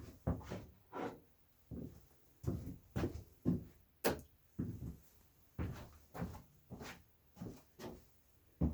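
Irregular knocks and clunks of objects being handled and set down, about one or two a second, with a sharp click about four seconds in.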